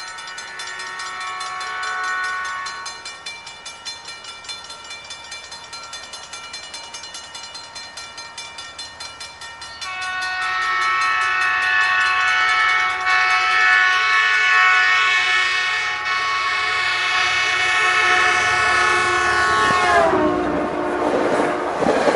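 Metrolink commuter train's horn, several tones sounding together: a blast that ends about three seconds in, then a long, louder held blast from about ten seconds in that drops in pitch as the train passes near the end. The rumble of the passing cars follows. In between, a grade-crossing bell rings at about two strokes a second.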